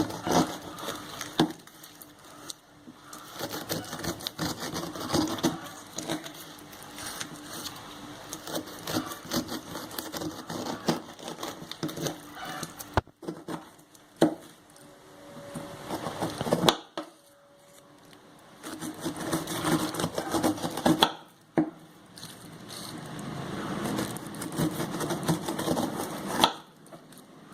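Knife cutting the thick, prickly rind off a whole pineapple: irregular crunching cuts with sharp knocks, in several stretches broken by brief pauses.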